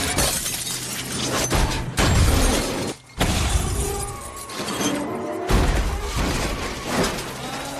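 Film sound effects of a vehicle crash: heavy impacts and shattering glass over music, with the loudest hits about two, three and five and a half seconds in.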